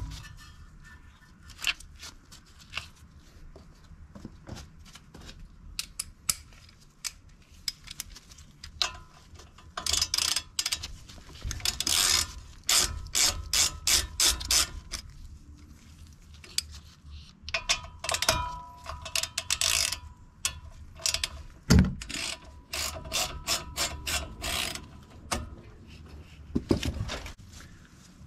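Ratchet wrench with an Allen socket clicking in quick runs as the front brake caliper bolts are loosened, with a single sharp knock about two-thirds of the way through.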